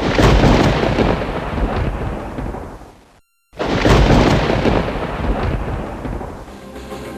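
Two claps of thunder, each breaking suddenly and rumbling away over about three seconds, with a brief silence between them.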